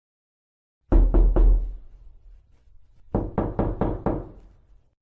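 Knocking on a door: three quick knocks about a second in, a pause of about a second and a half, then five more quick knocks.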